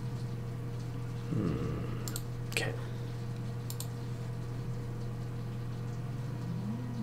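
A few sharp clicks at a computer, the strongest about two and a half seconds in, over a steady low electrical hum, with a soft low bump about a second in.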